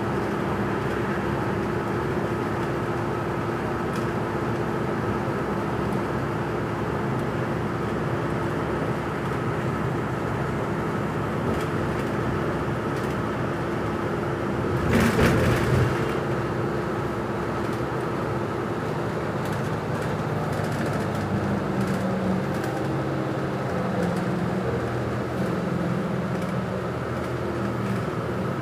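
Inside a moving city bus: steady engine, tyre and road noise with a constant hum. A brief louder rush comes about halfway through.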